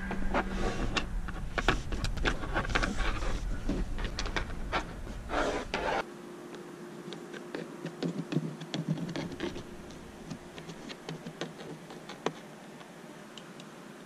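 Dashcam power cable being pressed into plastic car trim by hand and with a thin plastic tuck stick: scattered scratching, rubbing and small plastic clicks, dense at first and sparser in the second half. A low steady hum underneath stops abruptly about six seconds in.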